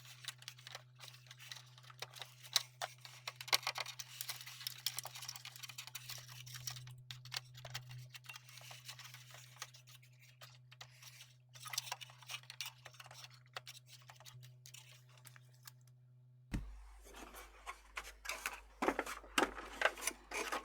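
Irregular clicks, taps and scrapes of plastic parts being handled as the Hemingway HK100 electronic keyboard's casing is reassembled, over a steady low hum.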